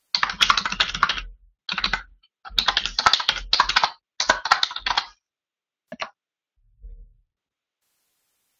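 Typing on a computer keyboard: quick keystrokes in four runs over about five seconds, then a lone tap a second later and a last faint one.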